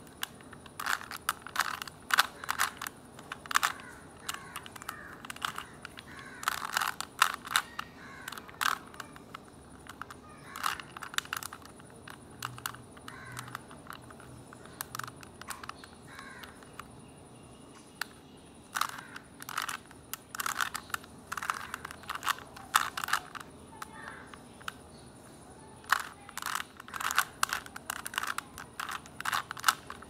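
Plastic 3x3 Rubik's Cube being turned by hand: quick runs of clicking, scraping layer turns in bursts, with short pauses between them and a longer pause about halfway through.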